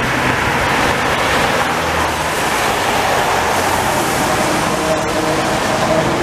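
Tyres hissing on a rain-soaked road as cars pass, then a vintage electric tram coming up on its rails, with its steady whine growing louder over the last couple of seconds as it draws close.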